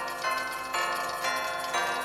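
Bell chime struck four times, about half a second apart, each stroke a different set of pitches ringing on into the next.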